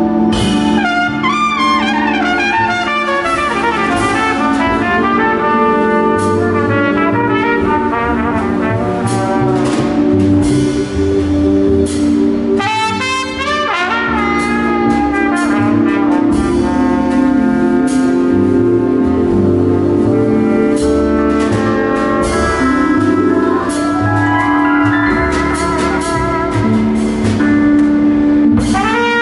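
Live jazz quartet: a trumpet soloing in quick runs of notes over upright bass, keyboard and a drum kit's cymbals.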